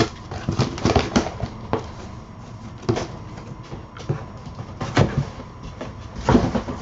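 A large cardboard shipping box being opened: a blade slices the packing tape, then the flaps are pulled open and the contents handled, giving irregular scrapes, rustles and knocks of cardboard.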